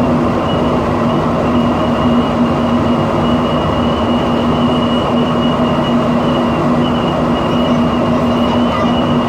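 Montreal metro train running: a loud, steady rumble with a low hum and a high, slightly wavering whine over it, the strange noise the rider is recording.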